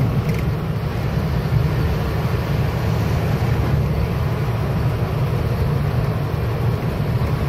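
Steady low rumble of a moving truck's engine and road noise, heard from inside the cab.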